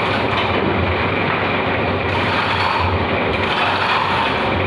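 A machine or motor running steadily, a dense even noise with a low hum underneath.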